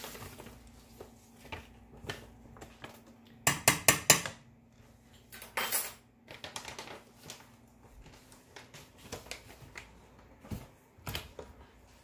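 A spoon clinking and tapping against a container while a teaspoon of monk fruit sweetener is scooped out, with a quick run of sharp taps about four seconds in. A brief rattle follows just before six seconds as the sweetener goes into the pan.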